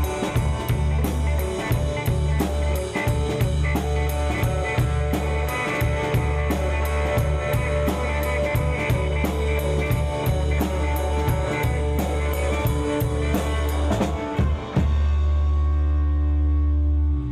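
Rock band playing live through amplifiers: a drum kit beats a steady, driving rhythm under distorted electric guitar and bass guitar. About fifteen seconds in the drums stop and the band holds a final ringing chord, which cuts off abruptly at the end.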